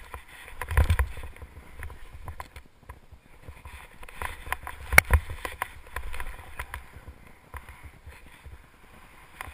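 Skis swishing and hissing through deep powder snow on a fast descent, with scattered clicks and two heavy low thumps, about a second in and about five seconds in, the second the loudest.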